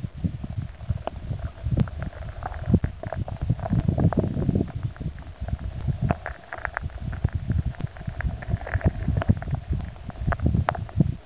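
Muffled underwater rumble of moving water, with frequent irregular knocks and clicks.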